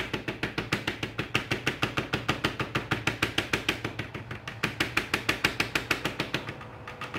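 Plastic spreader working body filler on a plastic mixing board: quick, even scraping strokes, about seven a second, that fade out near the end.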